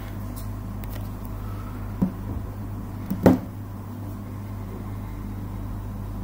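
Steady low room hum with two brief knocks, about two seconds and just over three seconds in, the second the louder.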